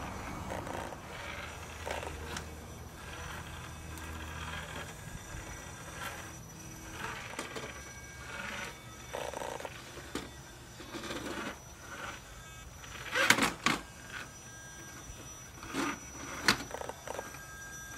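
RC4WD Defender 90 scale rock crawler's small electric drivetrain whirring as it crawls over boulders, with tyres and chassis scraping and knocking on the rock. There are two loud knocks, about thirteen seconds in and again about three seconds later.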